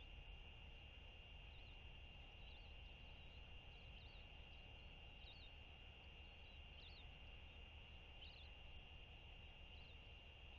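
Near silence: faint outdoor ambience, a low rumble with a steady high whine, and small high chirps every second or so.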